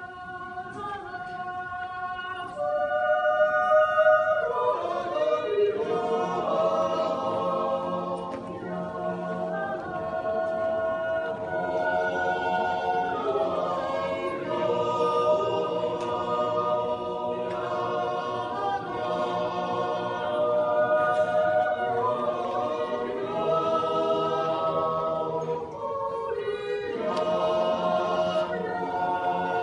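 Swiss yodel club's mixed choir of men's and women's voices singing unaccompanied in parts. It opens with a few voices, the full choir swells in a few seconds in, and there is a brief pause between phrases near the end.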